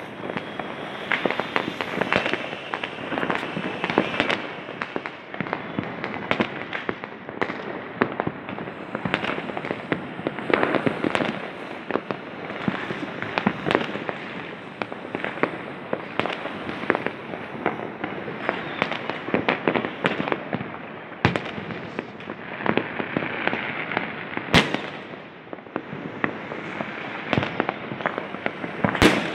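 Diwali firecrackers and fireworks going off without pause: a dense stream of bangs and crackling, with a few sharper, louder cracks in the second half.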